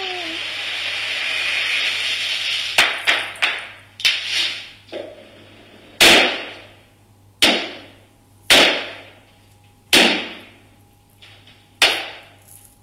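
Fireworks rigged inside a photocopier. A spark fountain hisses and grows louder for about three seconds, then about a dozen loud firecracker bangs follow, each with a short echoing tail. The first few come in quick succession, then they slow to about one every second and a half.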